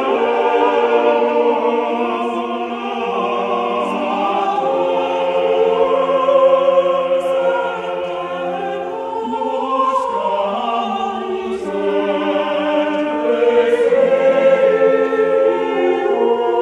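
A choir singing slow, sustained chords, the held notes changing every second or two.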